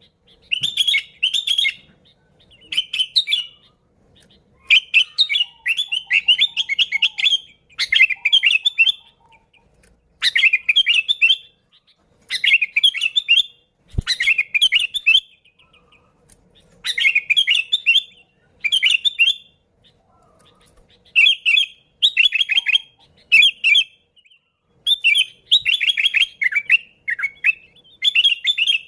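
Sooty-headed bulbul (kutilang) singing in lively bursts of rapid chirpy notes. Each phrase lasts about a second, and they repeat one after another with short pauses between.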